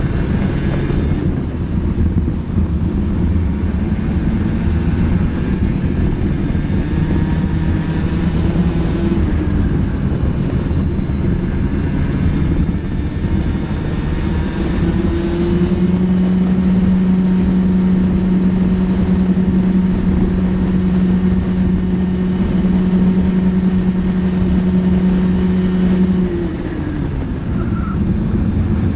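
Racing kart engine heard from on board at full race speed. Its pitch climbs and varies, then holds one steady high note for about ten seconds down the straight, and falls away near the end as the kart slows for a bend.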